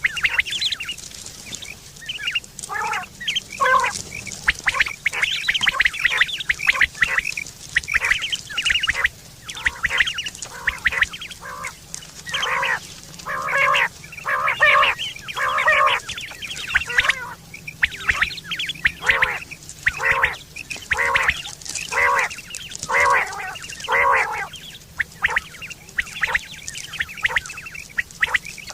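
Quails calling over and over: short, harsh, repeated notes in quick clusters, coming about every second without a break.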